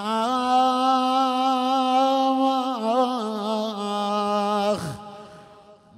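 A man's voice holding one long chanted note of a mourning lament, a drawn-out 'aakh' cry. The note wavers a little past the middle, steps down, and slides away about a second before the end.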